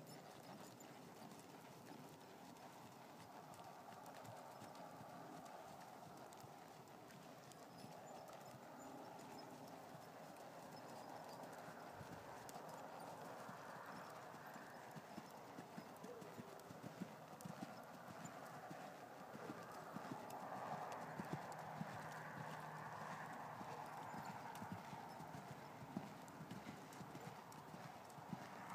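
Soft hoofbeats of an American Quarter Horse gelding on sand arena footing as it is ridden around the ring, over a steady background hiss. The hoof strikes grow clearer in the second half.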